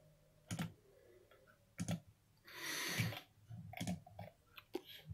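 Computer mouse clicks, a few single sharp clicks spread through, with a short soft hiss about halfway through.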